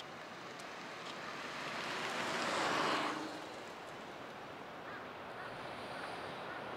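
Steady faint rushing of an EH500 electric locomotive and container freight train approaching from a distance, growing slightly toward the end. A louder whoosh swells about two seconds in and fades after three.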